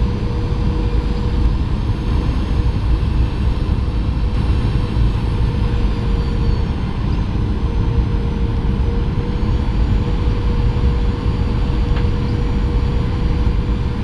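Steady cabin noise of a Boeing 737-900 on approach: its CFM56 jet engines and rushing air, with a steady hum-like tone running through it.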